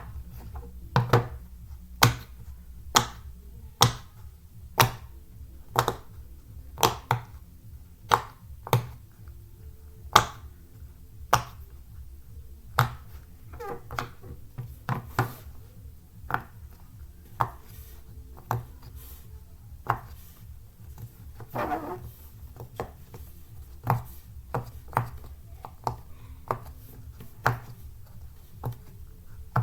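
Silicone pop-it fidget toy being popped bubble by bubble: a series of sharp pops, about one a second at first, then coming faster and mostly softer later on.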